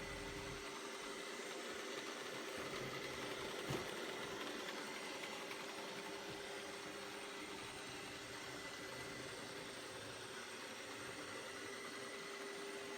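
ILIFE robot vacuum running: steady motor and fan noise with a constant hum. A single click comes nearly four seconds in.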